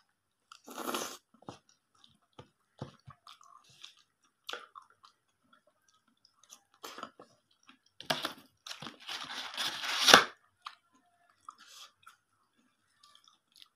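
Close-up chewing of a mouthful of spicy chaat with crisp fried sev, scattered wet mouth clicks and crunches, with a louder stretch of crunching lasting about two seconds a little past the middle.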